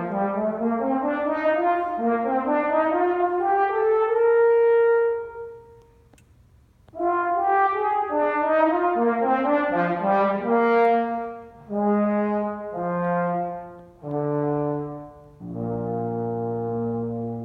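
Solo brass instrument playing a contest solo: rising runs of notes climb to a held high note, break off for about a second, then go on as a series of separate sustained notes.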